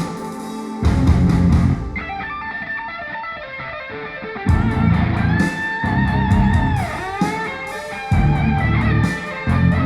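Rock music with electric guitar and bass played back through B&W DM603 S3 floorstanding speakers driven by a Sony TA-F490 integrated amplifier. Loud, heavy bass sections of about a second come and go every couple of seconds, with bending guitar notes in the middle.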